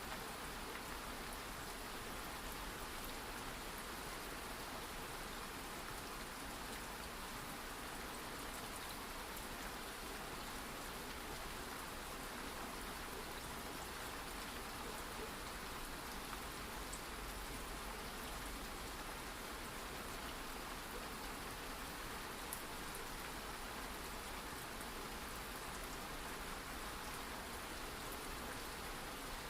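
Steady rain falling, an even hiss with faint drop ticks here and there.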